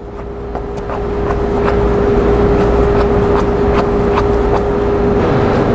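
A steady machine hum with a low rumble, swelling over the first two seconds and then holding, over light, regular clicks of a stick stirring thick epoxy filler mix in a plastic cup.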